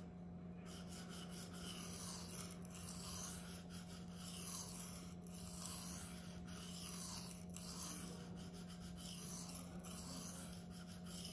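Knife blade of 14C28N steel stroked across a coarse Venev resin-bonded sharpening stone: a faint rasping hiss repeating about once a second as the edge is ground.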